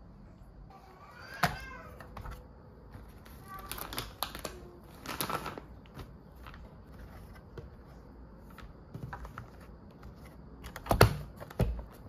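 Flat floor mop being fitted with a wet wipe: scattered clicks, taps and rustles as the sheet is tucked into the plate's grippers. Near the end come two loud clicks as the hinged mop plate snaps shut. A short high-pitched vocal sound, like a small dog's whine, comes about a second and a half in.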